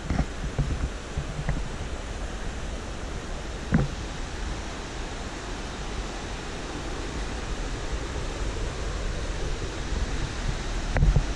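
Steady rushing of a fast mountain creek and waterfall in the canyon below, with a few soft thuds of footsteps on the dirt trail, one clearer about four seconds in.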